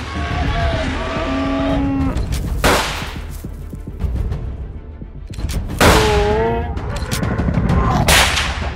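Three sudden loud gunshot-like bangs, each ringing briefly, over a constant low rumbling drone of a horror score, with wavering pitched cries near the start and again around the middle.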